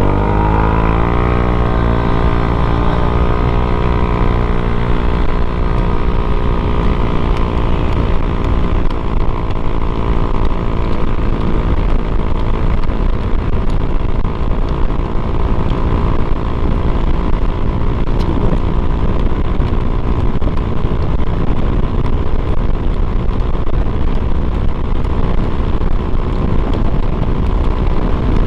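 Honda Click 125i scooter engine, fitted with a Speed Tuner CVT setup and aftermarket pipe, accelerating hard from a standing start at full throttle: the revs climb over the first couple of seconds, then hold almost steady while the CVT shifts up and road speed keeps rising. Heavy wind rumble on the microphone underneath.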